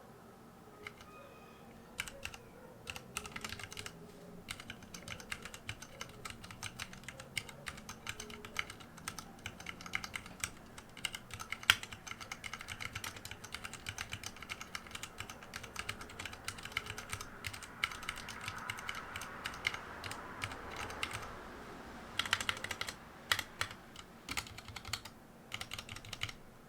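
Typing on a Ducky mechanical keyboard fitted with Sunshine (Tai-Hao) rubber keycaps: a steady stream of irregular key clicks starting about two seconds in, with quicker flurries near the end.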